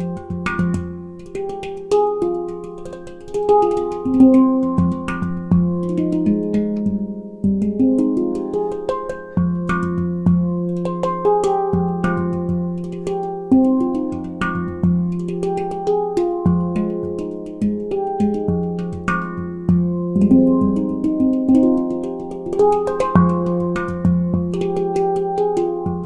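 McCarthy nine-note handpan in nitrided steel, tuned to an F Low Pygmy scale, played with the hands. A steady stream of struck notes ring on and overlap, with the low central note coming back again and again beneath the higher tone fields.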